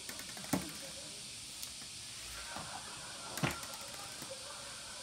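Two sharp thuds about three seconds apart, with a few light taps between, from a small ball thrown to a kitten landing and bouncing on a wooden floor.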